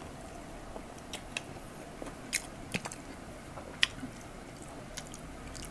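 Close-miked chewing of crispy fried chicken, with irregular short crunches and clicks every half second or so.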